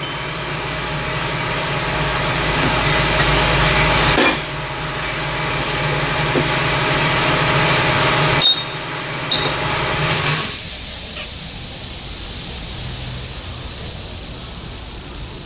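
Power tool running in long stretches with short breaks, then a steady high hiss for the last five seconds.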